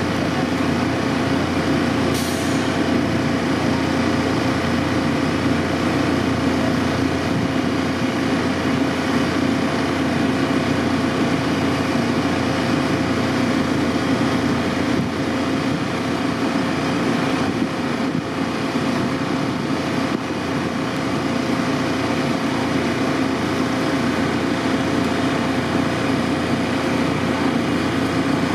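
Steady mechanical hum of a stationary vehicle running at idle, with a constant drone and a faint whine that hold unchanged, and a brief click about two seconds in.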